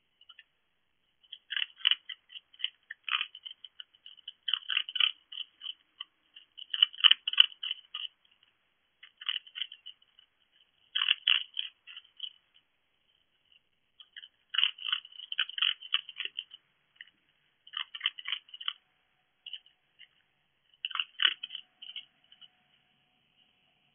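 A fox crunching food, in bursts of chewing every couple of seconds with short pauses between.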